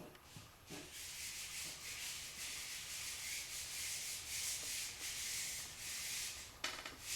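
Scratchy rubbing or scrubbing, like sanding or wiping a part, that runs for about five seconds and then stops, followed by a few quick clicks near the end.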